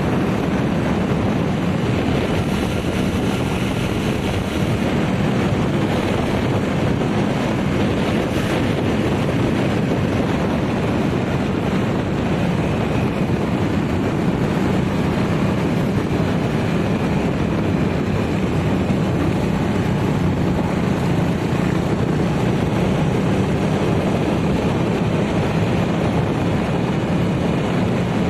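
Motorcycle engine running at a steady cruise with wind rushing over the microphone, a constant hum under the rushing noise.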